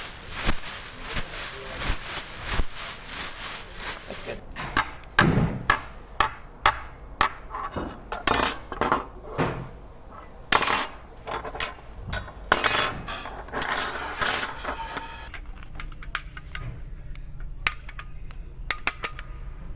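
Foley sound effects of hard objects being struck: a dense, rapid run of clicks for about four seconds, then a long series of separate knocks, clatters and clinks, some ringing briefly.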